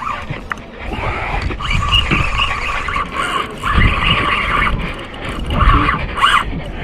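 Spinning or casting reel's drag buzzing in spurts of a second or two as a hooked black drum runs and pulls line off, over low wind rumble on the microphone.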